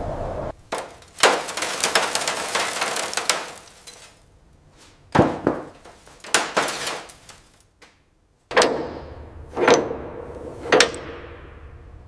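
Workshop tool noises: a few knocks and a couple of seconds of scraping clatter, more knocks, then three sharp strikes about a second apart, each ringing briefly.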